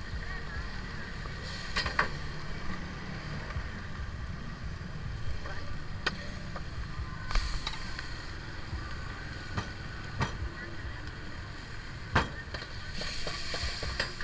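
Gas wok burner running with a steady low rumble while a steel ladle stirs a sauce in the wok, knocking against the pan now and then, about five sharp clinks in all. A short burst of sizzling near the end as steam rises from the wok.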